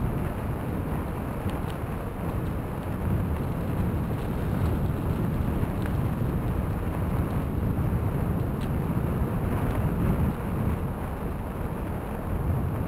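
Wind noise on the microphone of a moving bicycle, with its tyres rolling over a packed crushed-stone trail: a steady low noise with a few faint ticks.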